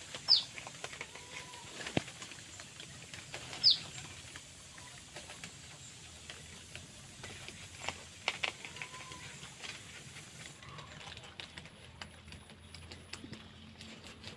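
Guinea pigs and rabbits chewing jackfruit leaves: many small crunching clicks and leaf rustles. Two short, high squeaks falling in pitch, one just after the start and one near four seconds in, are the loudest sounds.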